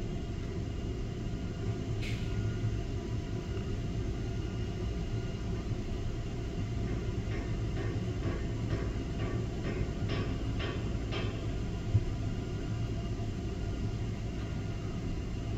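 Steady low rumble and hum of crane machinery running, with a few faint short clicks through the middle stretch.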